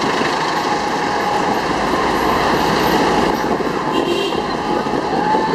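Steady engine and road noise of a moving jeepney, heard from on board, with street noise mixed in.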